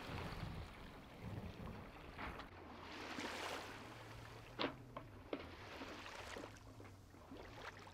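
Faint wind and water rushing past a sailboat under sail, with a couple of short sharp ticks about halfway through.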